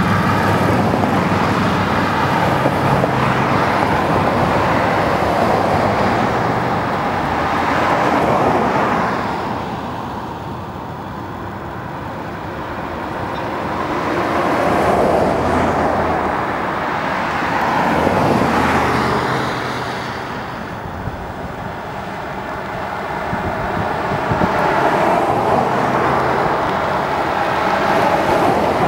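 A slow line of police cruisers and cars driving past one after another, their engines and tyres growing louder and fading as each goes by.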